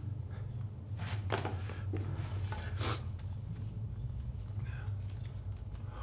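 Steady low hum with a few short knocks and rustles of objects being handled and stacked on a desk, sharpest about one and three seconds in.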